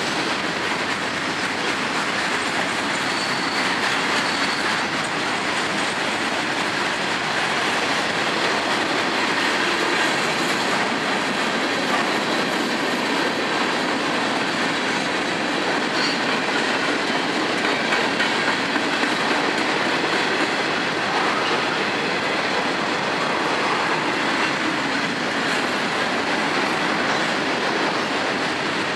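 Freight train cars rolling steadily past on the near track: the continuous noise of steel wheels running on the rails, with no locomotive in earshot.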